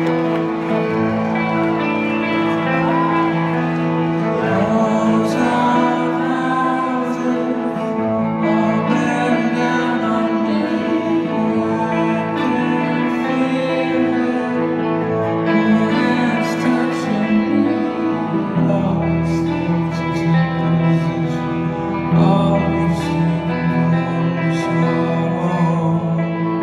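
Live rock band music: electric guitar with a man singing. A deeper bass part comes in about two-thirds of the way through.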